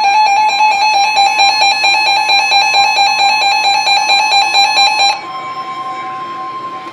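Emergency Alert System attention tone: a loud, steady two-pitch alarm tone. About five seconds in it drops sharply in level and carries on more quietly.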